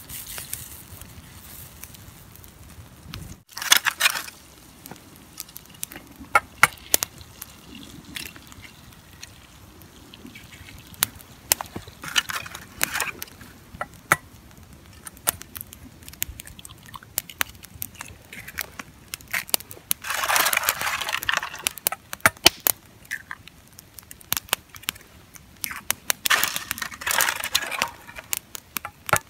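Campfire crackling with frequent sharp pops, joined a few times by second-long bursts of handling noise as eggs are cracked into a small pan.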